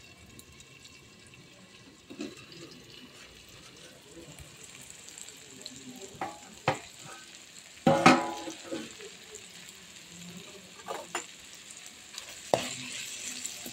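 Leafy greens and onions sizzling in oil in a steel kadai, with several sharp metal clanks from the pan and utensils; the loudest clank comes about eight seconds in, and the sizzling grows louder near the end.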